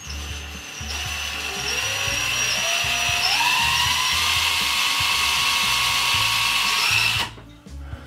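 DeWalt cordless drill running as it bores a screw hole into the wooden cabinet door, its motor whine climbing in pitch over the first few seconds, then holding steady until it stops suddenly near the end.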